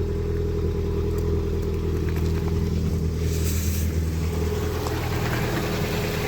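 Lada Priora's four-cylinder petrol engine idling steadily, with a brief hiss about three seconds in.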